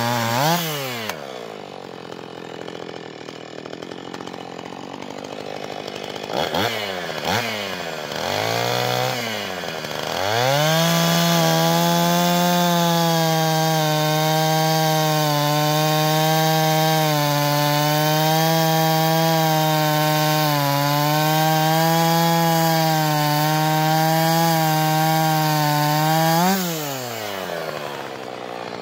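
Husqvarna 445 two-stroke chainsaw with a ripping chain. It drops from high revs to idle, is blipped a few times, then runs at full throttle under load for about sixteen seconds while cutting wood, and falls back to idle near the end.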